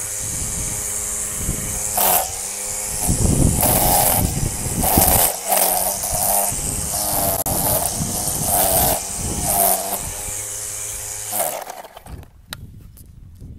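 Electric string trimmer whining as its line cuts into dirt and weeds, the motor pitch dipping and surging again and again as the line strikes the ground. The motor cuts out near the end.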